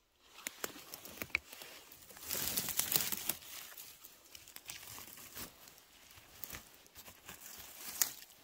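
Crackling and rustling of dry forest-floor litter being disturbed, with scattered sharp snaps and a louder stretch of rustling about two to three seconds in.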